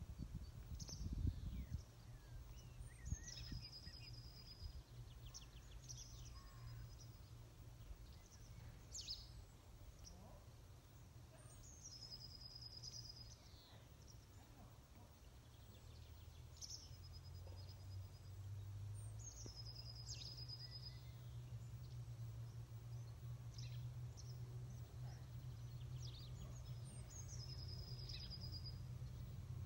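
A songbird singing the same short phrase again and again, every few seconds, each ending in a high trill, over a faint low steady rumble.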